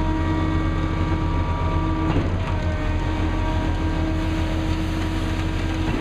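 Concrete boom pump truck running steadily: a deep engine drone with several steady whining tones above it, and a faint knock about two seconds in.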